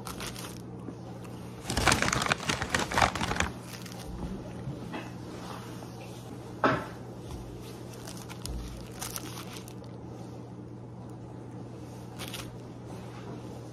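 Paper sandwich wrapper crinkling for a couple of seconds, then a single sharp knock a few seconds later and a few faint handling ticks, over a steady low hum.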